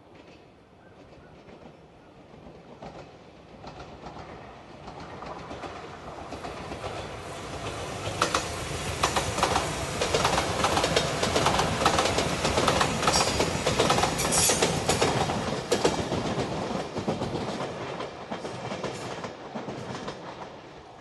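Anpanman-painted JR Shikoku limited express train passing close by: its rumble builds over several seconds, its wheels click over the rail joints at the loudest part, and it fades away near the end.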